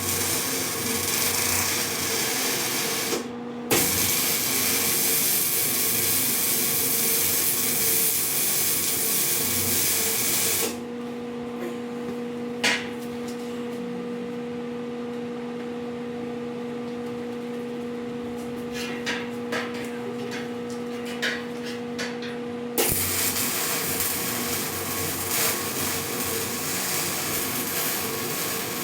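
Electric welding arc crackling and hissing in long beads: it breaks off briefly about three seconds in, runs on until about eleven seconds, then stops. The welder's steady hum and a few clicks fill the gap, and the arc strikes again about twenty-three seconds in.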